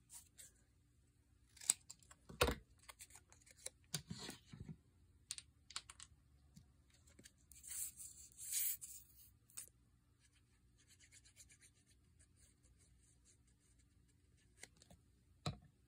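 Faint handling sounds of cardstock and a plastic glue squeeze bottle: scattered light taps and clicks, with a brief scratchy rustle about eight seconds in as glue is squeezed onto a small square of black cardstock, and a single knock near the end.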